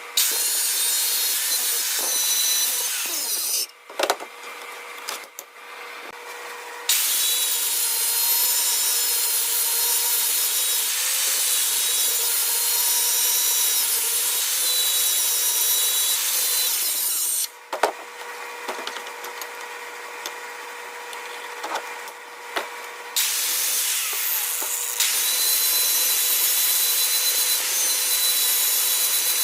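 Power sander with a steady motor whine, grinding the knife's steel blade in three long passes of harsh rasping hiss, broken by two quieter pauses with a few knocks.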